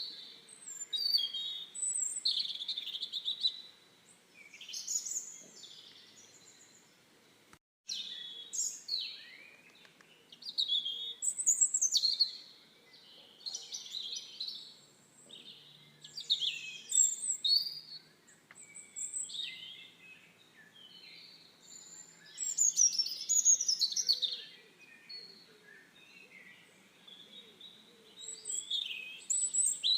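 Several birds singing and chirping, with many short overlapping calls and trills, some high and thin, others sweeping quickly up or down. The sound cuts out briefly about a quarter of the way through.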